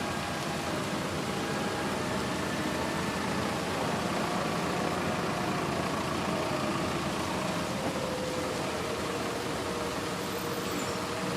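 Steady rain and city traffic noise, with faint held tones of distant church bells sounding through it.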